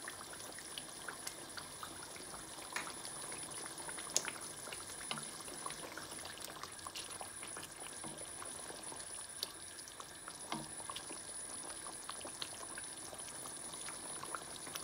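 Chicken curry gravy simmering on low flame in a frying pan: a faint, steady bubbling with many small scattered pops. A few soft knocks come from a wooden spoon stirring it.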